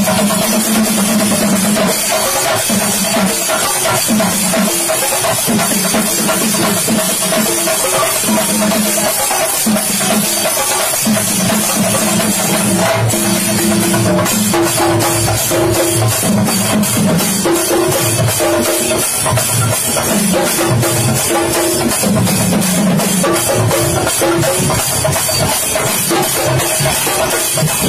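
Chenda melam: a group of chenda drums beaten in a rapid, unbroken roll, with a repeating pitched melody of held notes over the drumming.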